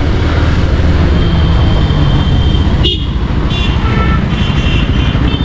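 Bajaj Pulsar 150's single-cylinder engine running at low road speed as the bike slows through traffic, heard from the rider's seat. Vehicle horns sound over it, one held from about a second in and others in short toots from about three and a half seconds on.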